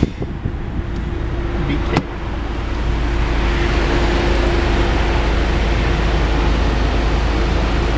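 A car idling in a drive-thru lane, heard from inside the car. About two seconds in there is a sharp click, then a steady hiss and a low hum grow louder and hold.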